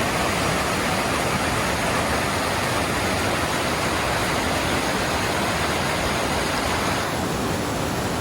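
Rushing mountain stream rapids: a steady, dense rush of water, its tone shifting slightly about seven seconds in.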